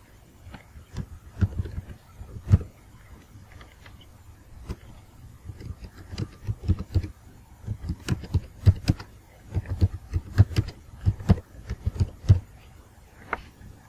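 Typing on a computer keyboard: irregular key clicks, a few scattered at first, then a quick steady run of keystrokes through the second half.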